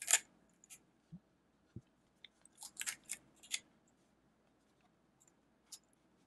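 Clear 3D print crackling and popping as it peels free from a flexed spring-steel PEI build sheet: scattered short, sharp crackles, bunched together around the middle, with a couple of soft low knocks of the plate being handled.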